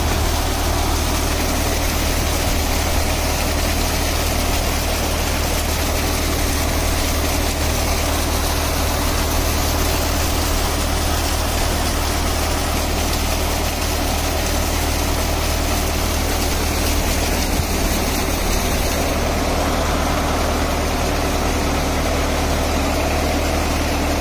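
Tractor diesel engine running steadily under load, driving a 4x4 self-priming water pump through its PTO and a double belt pulley, with a steady rush of water jetting from the pump's outlet pipe.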